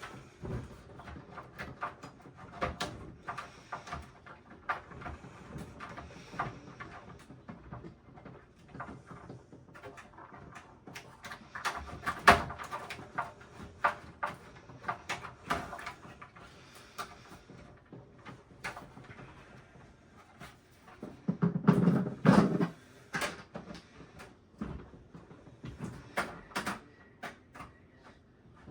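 Irregular clicks, taps and knocks of computer case parts and tools being handled, with a louder, lower-pitched burst of sound a little past the middle.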